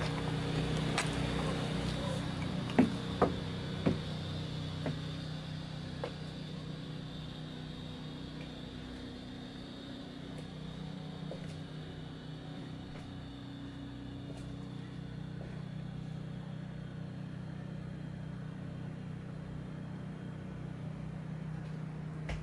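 A steady low mechanical hum, with a few sharp clicks and knocks in the first few seconds as the bus door is opened by its handle and someone steps inside.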